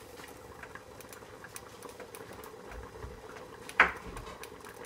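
Faint crackling and ticking of tomato halves cooking in oil in a pan, over a faint steady hum. One sharp clink of kitchenware about four seconds in.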